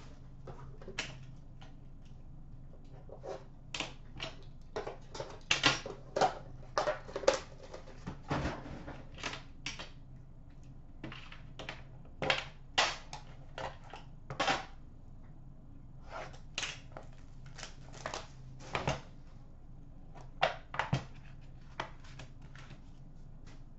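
Irregular clicks, taps and light scrapes of a hockey card box being handled and opened by hand, its cardboard lid and packaging knocking and sliding. A low steady hum runs beneath.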